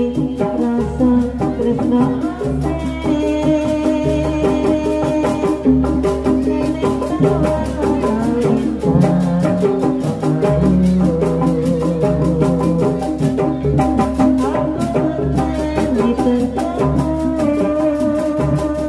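Javanese jaranan gamelan playing: kendang drums, small gong-chime kettles and metallophones keep up a fast, busy rhythm under sustained melodic lines.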